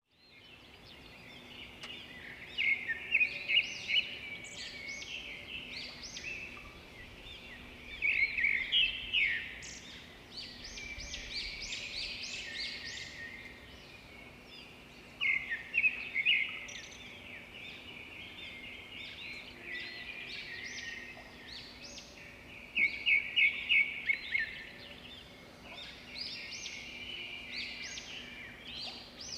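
Several songbirds singing and chirping at once, a chorus of short high notes and quick trills, with louder bursts of rapid repeated notes every several seconds over a faint steady background hum.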